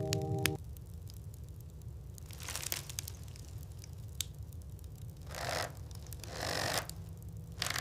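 Four short crunching scrapes in snow, a few seconds apart, over a low steady rumble.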